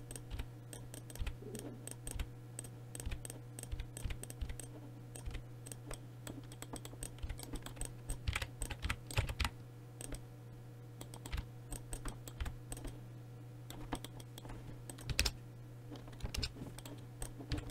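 Computer keyboard keys and mouse buttons clicking in irregular bursts, over a steady low hum.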